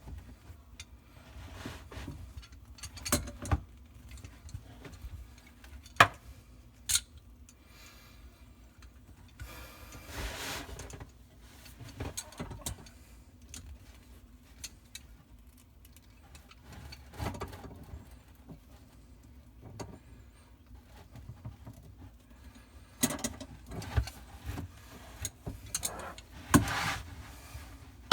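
Scattered clicks, clanks and knocks of hands handling tools and plumbing fittings in the cramped cabinet under a bathroom sink, with a short rustle about ten seconds in and a busier run of clicks near the end.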